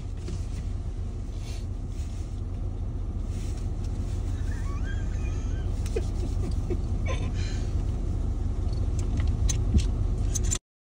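Vehicle engine idling, heard from inside the cab as a steady low rumble with a few faint ticks; it cuts off suddenly near the end.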